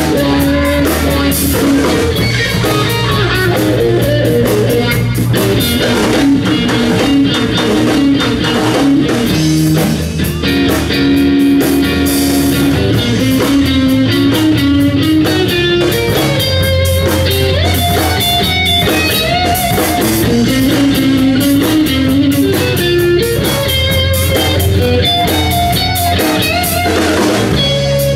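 Live rock band playing: electric guitar over bass guitar and a drum kit, loud and continuous.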